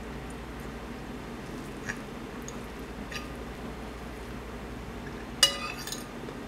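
Close-up mouth sounds of someone chewing a forkful of omelet, with a few faint clicks. About five and a half seconds in, a metal fork clinks sharply against the plate with a short ring, the loudest sound.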